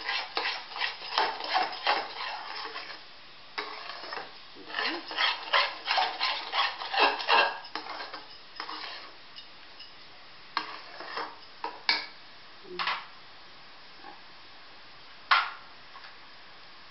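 A spatula scraping against a kadhai as thick, cooked semolina upma is stirred fast, in quick runs of strokes. After about seven seconds the strokes thin out to a few, with one sharp knock near the end.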